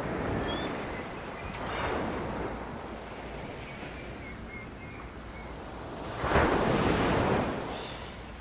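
Ocean waves washing onto a beach, rising and falling in swells. The biggest wave breaks about six seconds in and fades away over the next two seconds.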